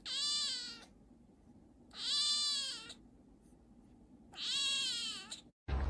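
A grey kitten meowing three times, about two seconds apart: short high-pitched calls that each rise and then fall in pitch.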